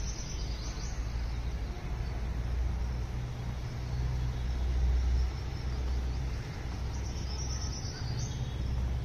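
Outdoor ambience: a steady low rumble that swells briefly about halfway through, with faint high chirping near the start and again near the end.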